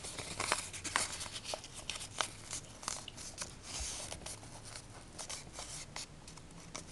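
Paper rustling and crinkling as a folded strip of printed paper is creased between the fingers, with scattered small crackles, busier in the first half and softer toward the end.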